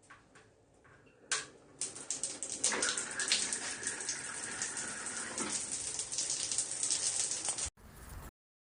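Shower water spraying and splashing, starting about two seconds in after a couple of clicks and stopping suddenly near the end.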